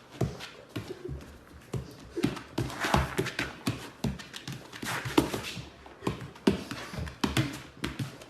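Dogs panting and moving about close by, with scattered light taps and clicks and a few louder breaths about three and five seconds in.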